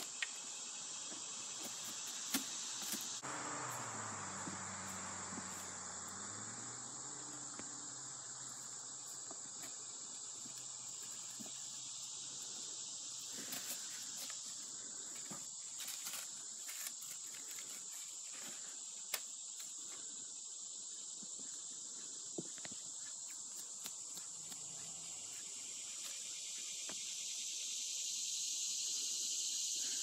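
Steady high-pitched chorus of insects, with scattered light clicks and scuffs of footsteps on rock. A faint low drone that shifts in pitch passes a few seconds in.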